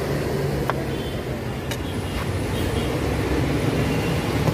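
Steady low rumble of passing street traffic, with a couple of faint knife taps on a wooden cutting board about one and two seconds in.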